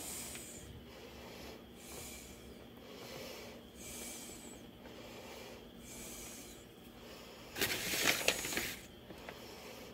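Soft, close breathing near the microphone, a hissing breath about once a second, with a louder rustle lasting about a second near the end.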